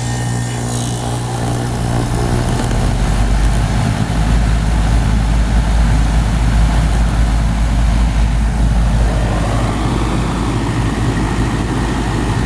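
A 2.5-ton Goodman gas pack's condensing section running in cool mode just after start-up: a steady low hum from the compressor and fan, growing louder and deeper about four seconds in.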